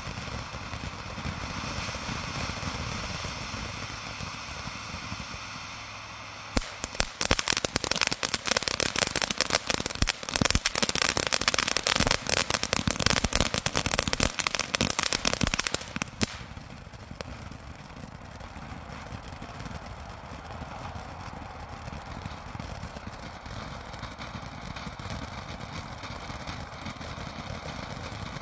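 Fountain firework spraying sparks with a steady hiss. From about six seconds in to about sixteen seconds it breaks into a loud, dense, rapid crackling, then settles back to the hiss.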